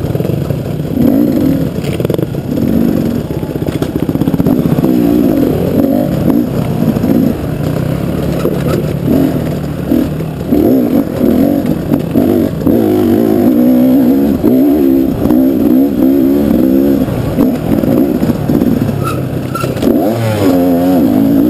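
KTM dual-sport motorcycle engine under way, its revs rising and falling constantly as the rider works the throttle.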